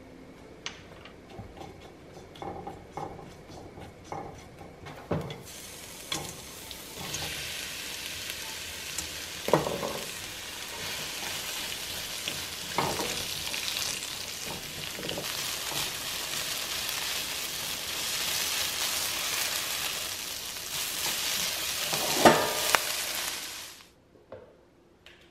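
Cumin seeds crackling faintly in hot oil in a wok, then a sudden loud sizzle as sliced onions and garlic go into the pan, with a wooden spatula stirring and knocking against the pan now and then. The sizzle cuts off about a second before the end.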